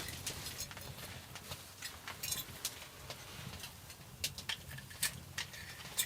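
Scattered light clicks and taps, irregular and faint, over a low steady background.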